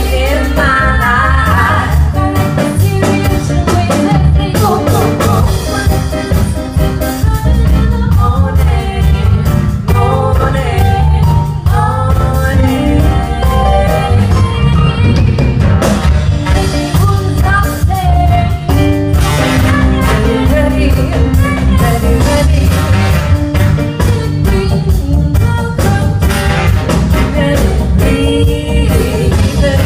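Live band playing a song with a lead singer over strong bass and drums, loud and continuous.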